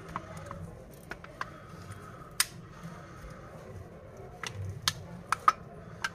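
Scattered sharp clicks and light taps from a smartphone being handled and pressed down on a cloth on a silicone repair mat, over a low steady hum. The loudest click comes about two and a half seconds in, and two more come close together near the end.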